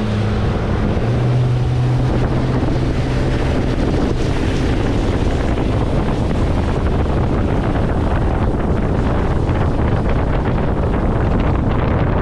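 A boat's motor running under way, with heavy wind buffeting the microphone. The motor's low tone steps up in pitch about a second in, then fades into the steady rush of wind and water.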